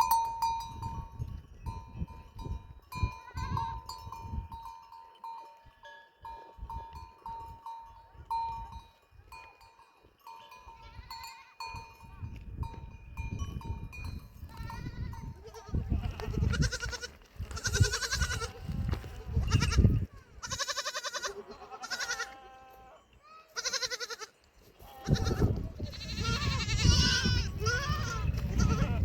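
A flock of goats and sheep bleating, with many overlapping calls through the second half. In the first half, small livestock bells ring over and over.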